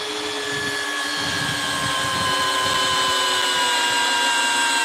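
Two 12V cordless screwdrivers, a Makita and a Hilti, running together on low speed while driving long screws into a log. Their steady motor whine slowly falls in pitch as the screws go in.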